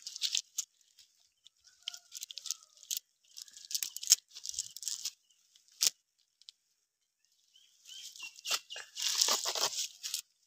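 Dry grass and dead leaves rustling and crackling as a fishing net is handled and small fish are picked out of it, in irregular bursts with a short lull, busiest near the end.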